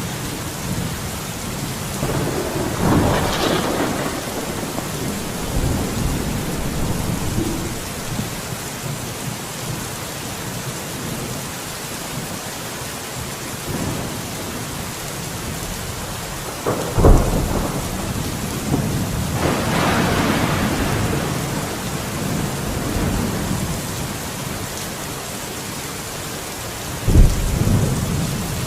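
Steady rain with thunder. A roll of thunder comes a few seconds in; past the middle, a sharp crack is followed by a long rumble; another sharp crack comes near the end.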